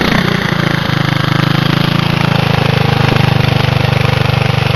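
Riding lawn tractor's small engine running steadily at high throttle, with a brief wobble in its note at the start.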